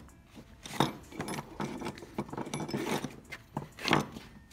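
Racing harness strap being handled by hand: nylon webbing rustling and sliding through its fittings, with the metal snap hook and eye bolt clinking now and then. The louder clinks come about a second in and near the end.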